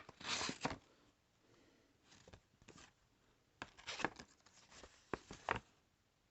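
An automatic knife's blade stabbing into material and being dragged through it, with a string of short tearing and scraping sounds.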